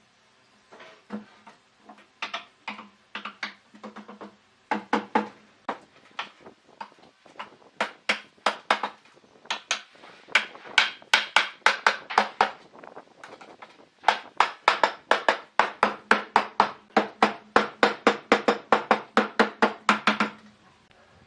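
Hammering in a workshop: a long run of sharp knocks, about three to four a second, with short lulls about six and thirteen seconds in.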